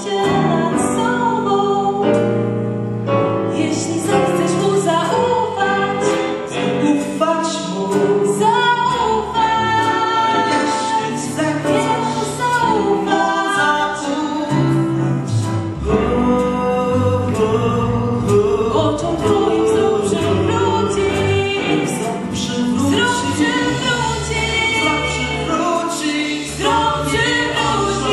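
Mixed choir of male and female voices singing live, with a male and a female lead voice amplified through microphones over the ensemble and low sustained bass notes beneath.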